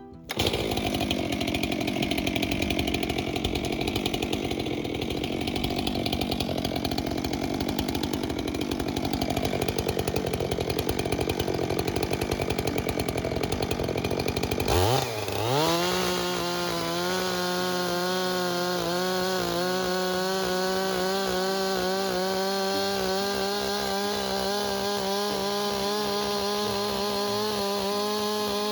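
Stihl gas chainsaw ripping through a log under load for about fifteen seconds. It then comes free of the cut and runs on steadily at high revs with an even, pitched engine note.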